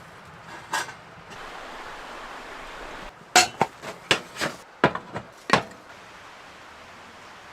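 A single sharp knock about a second in, then a quick, uneven run of about eight sharp knocks or clinks of hard objects from about three seconds in.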